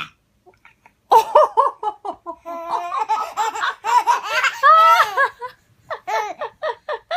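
A baby laughing in rapid, high-pitched bursts, starting about a second in and breaking into a few short separate bursts near the end.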